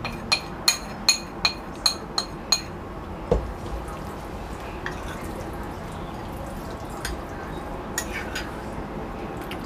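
A metal spoon tapped about seven times against a plastic bowl, knocking tapioca starch out into the meat. Then quieter squishing and rustling of bare hands mixing the starch into minced chicken, with a dull thump about three seconds in.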